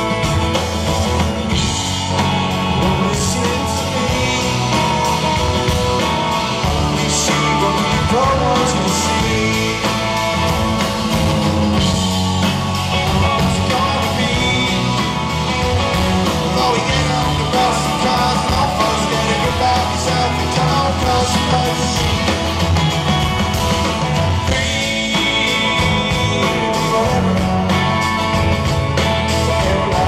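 Live rock band playing, heard through the venue PA: strummed acoustic guitar with bass, electric guitar and keyboards, and a man singing lead.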